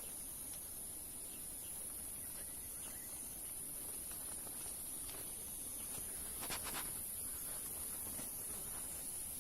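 Primary forest ambience: a steady, high-pitched insect drone throughout, with a short run of a few rapid clicks about six and a half seconds in.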